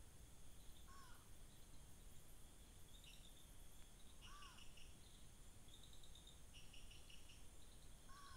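Faint night-time animal calls: a short whistle that rises and falls, repeated about every three and a half seconds, over short bursts of pulsed chirping, against a steady low hiss.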